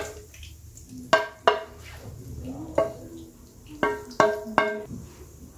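Wooden spatula scraping and knocking against a wok as stir-fried egg and tomato is pushed out into a plate. About six sharp clinks, each with a short ring, come about a second in, near the middle and in a quick run of three near the end.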